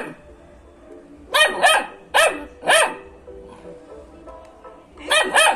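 Belgian Malinois puppy barking in high-pitched yaps: four short barks starting about a second and a half in, then a quick run of barks near the end.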